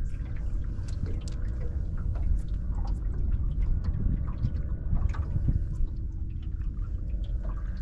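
Small splashes and drips of water at the side of a small boat, over a steady low rumble.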